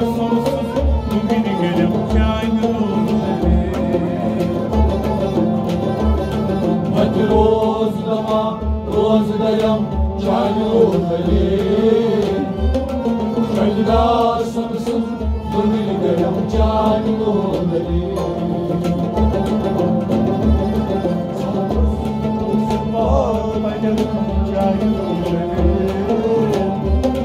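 Kashmiri Sufiana music: a steady low drum beat under sustained instrumental tones, with a melody that bends up and down in pitch.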